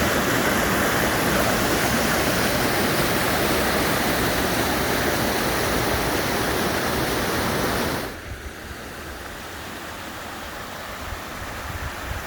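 Creek water rushing over rocks: a loud, steady rush that cuts off abruptly about eight seconds in to a quieter, lower rush.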